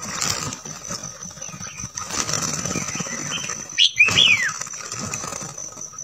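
Water splashing as red-whiskered bulbuls bathe in a shallow rock pool, under a steady high-pitched whine. About four seconds in, a bulbul gives a loud two-note call, the second note sliding down in pitch.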